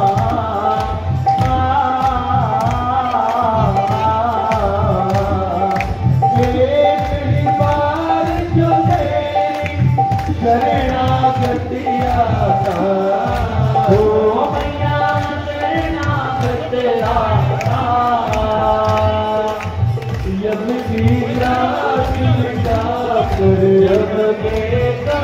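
Devotional song sung in a melodic line over a steady drum beat: the aarti hymn that accompanies the lamp offering.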